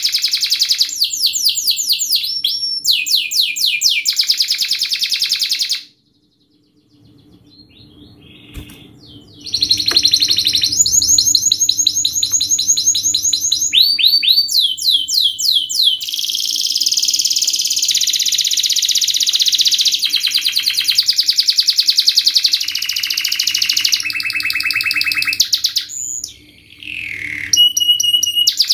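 Domestic canary in full song, delivering a fast, tightly packed song of rapid trills and rolls, some phrases sweeping down in pitch. The song breaks off after about six seconds for a pause of about three seconds, then resumes, with a brief dip near the end.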